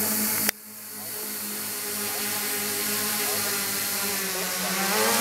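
Quadcopter's four RCMC 2826 brushless motors spinning 9x4.7 props in flight, a steady buzzing hum. About half a second in there is a click and the sound drops away suddenly, then builds back over a second or two. Near the end the pitch dips and then climbs again.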